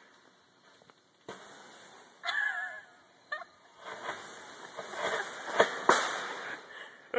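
A small firework fizzing, then crackling and popping in an uneven series, the sharpest cracks near the end, each one echoing in a tunnel.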